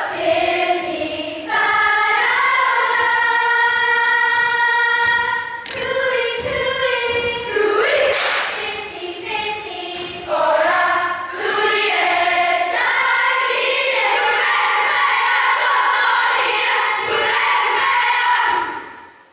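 Children's kapa haka group singing a Māori song together in unison, mostly on long held notes; the singing stops near the end.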